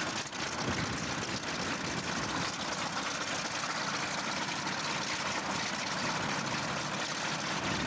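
Propeller-driven warbird's piston engine running steadily, with a dense, even sound holding at one level.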